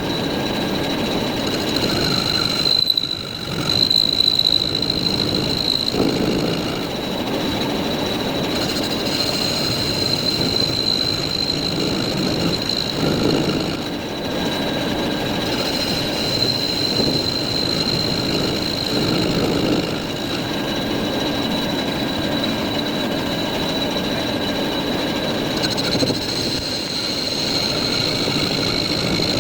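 Metal lathe running and cutting steel, a steady machine noise with a thin high whine over it.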